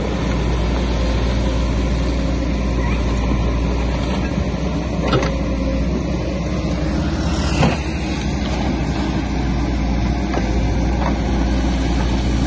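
Caterpillar backhoe loader's diesel engine running steadily under hydraulic load while the bucket digs mud from a flooded ditch. Two short knocks come through, about five seconds in and, louder, about seven and a half seconds in.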